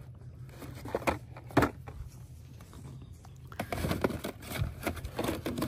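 Cardboard activity-set boxes being shuffled and tapped on a cardboard store display: a few sharp clicks, then busier handling noises near the end, over a low steady background hum.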